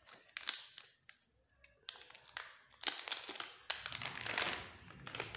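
Thin plastic component bags crinkling and rustling as they are handled, in several bursts with a short lull about a second in.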